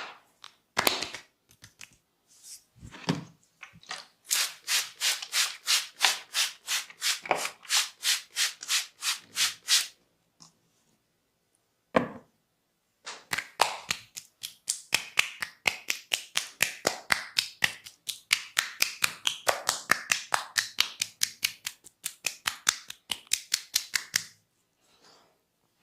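A masseur's hands rubbing briskly back and forth over hair and skin in quick, even strokes. There are a few single strokes first, then a run of about three strokes a second, and after a short pause a longer, faster run of about four a second.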